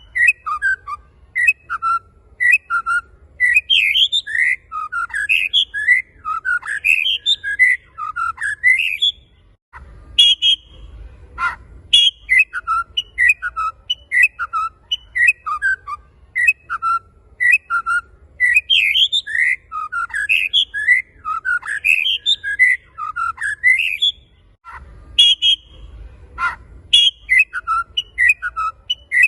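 Male white-rumped shama (murai batu) in full song: rapid runs of varied, clear whistled notes, phrase after phrase, with brief breaks about ten seconds in and again near the end.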